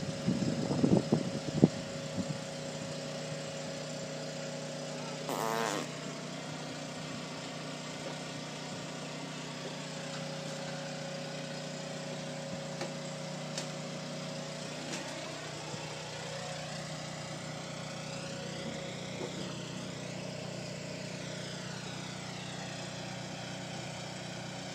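Forklift engine idling steadily, a constant hum, with a few knocks in the first couple of seconds and a short wavering sound about five seconds in.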